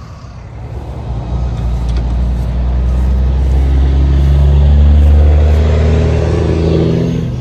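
A motor vehicle's engine running close by with a deep, steady note. It grows louder over the first few seconds to its loudest about five seconds in, then eases off near the end, like a vehicle passing on the road.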